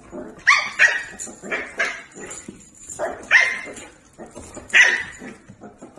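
Dog barking and yipping in a string of short calls, about a dozen in six seconds, with a few louder ones spread through.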